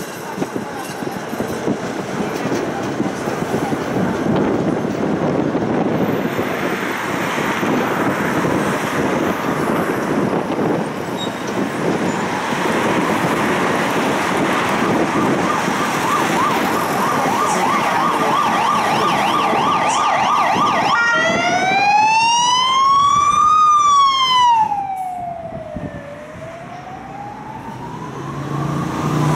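Tram running with a steady rumble and rattle. About two-thirds of the way in, an emergency vehicle's siren starts a slow wail, rising and falling in pitch twice, and the tram noise dies away beneath it.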